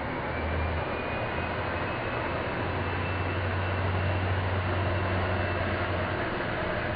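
Horizontal metal-cutting band saw running, its blade cutting through steel rectangular tubing: a steady grinding hiss over a low motor hum, with a faint high ringing tone.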